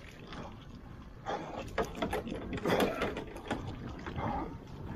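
Irregular clatter of knocks, scrapes and rattles from crabbing gear being handled, with the loudest bursts around the middle.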